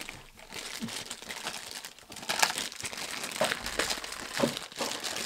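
Funko Mystery Minis blind boxes and the foil bags inside being torn open by hand: crinkling and ripping that gets busier and louder about two seconds in.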